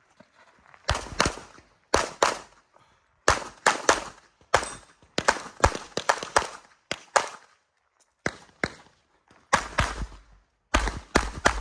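Semi-automatic pistol fired in rapid pairs, about a quarter second between the two shots of each pair, with short pauses between pairs: double taps on a series of targets during an IPSC stage run.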